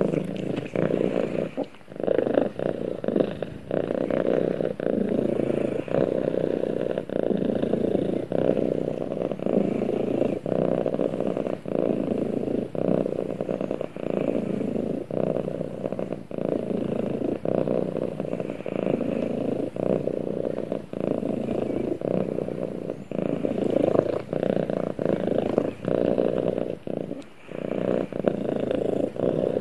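Domestic cat purring steadily, a continuous rough rumble that dips briefly about once a second with its breathing, with slightly longer breaks about two seconds in and near the end.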